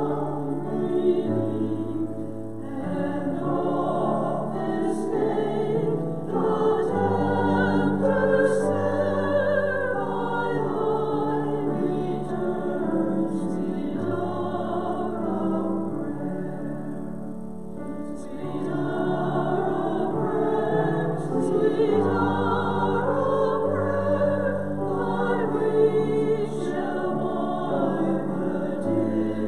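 A choir singing sacred music in several parts, with long held notes and vibrato over a sustained low line.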